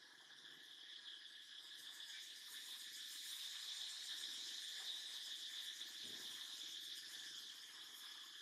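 Insects buzzing in a steady, high-pitched chorus that swells a little in the middle and eases off toward the end.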